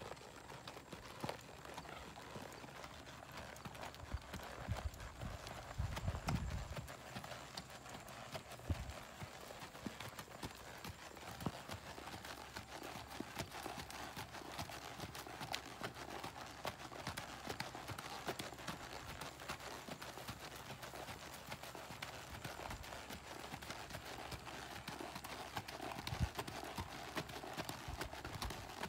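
Hoofbeats of a ridden Quarter Pony gelding walking on a dirt arena: a steady clip-clop of soft footfalls. A brief low rumble about six seconds in.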